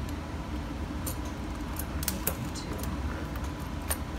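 Scattered metallic clicks and clinks of a ratchet and socket working on a car battery's terminal clamp, over a steady low hum.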